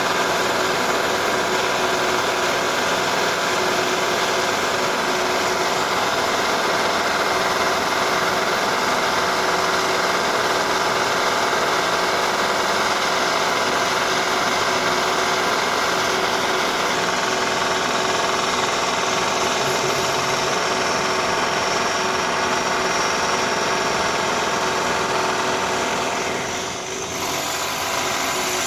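Renovation drilling noise: a power drill running continuously with a steady whine and grinding, dropping briefly near the end and then starting again.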